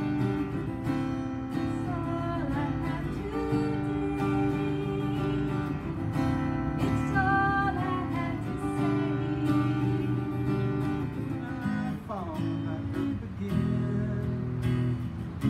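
Live acoustic music: two acoustic guitars strumming chords, with sung vocals over them.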